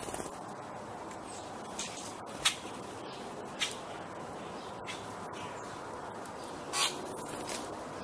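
Baltimore orioles giving a handful of short, harsh calls, the loudest about two and a half seconds in and again near seven seconds, over a steady background hiss.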